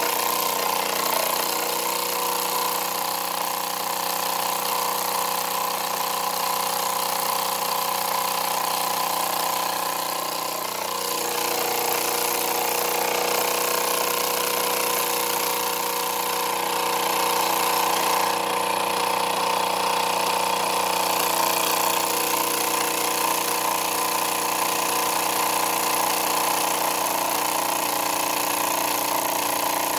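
Wilesco toy steam engine running steadily at speed with its flywheel spinning: a continuous mechanical whir with a constant hiss, its tone shifting slightly about eleven seconds in.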